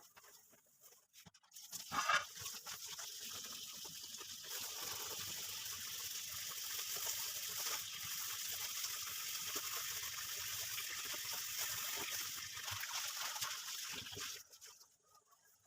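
Kitchen tap turned on, with water running steadily into the sink for about twelve seconds, then turned off.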